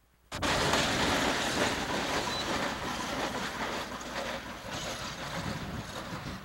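Diesel freight locomotive and its cars rolling past close by, engine and wheels on rail, cutting in abruptly about a third of a second in and slowly easing off.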